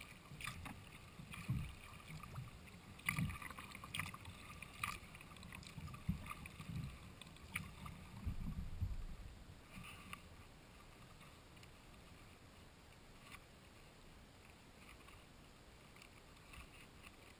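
Sea kayak paddle strokes in calm water: the blades dip, splash and drip at an irregular pace of about one stroke a second, with low thuds. It goes quieter about ten seconds in, leaving only faint water noise.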